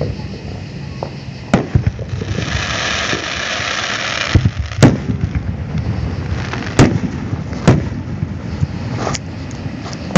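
Aerial firework shells bursting in the sky: about six sharp bangs spread over ten seconds, with a steady hiss for a couple of seconds between the first and second bangs.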